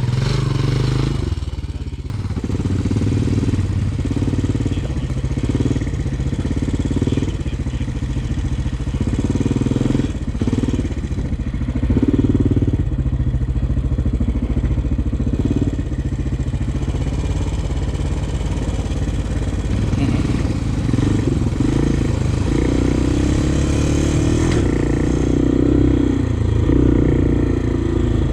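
Honda 400X sport quad's single-cylinder four-stroke engine running under way, the throttle opening and easing every second or two.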